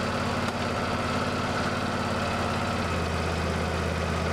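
Husqvarna lawn tractor engine running steadily, its drive idler pulley newly replaced so the pulley noise is gone. The low hum gets fuller about three seconds in.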